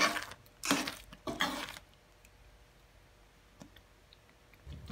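A spoon stirring thick spaghetti sauce in a pan: three stirring strokes in the first two seconds, then near quiet, with a low hum starting near the end.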